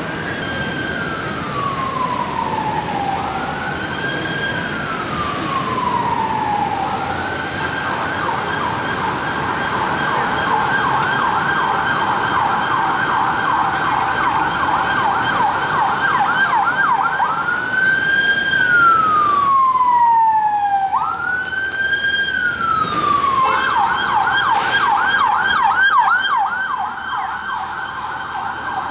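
Emergency-vehicle siren cycling between a slow wail, where each sweep holds high and then falls away over a couple of seconds, and a fast yelp. It switches to the yelp about eight seconds in, goes back to the wail around eighteen seconds, then returns to the yelp a few seconds before the end.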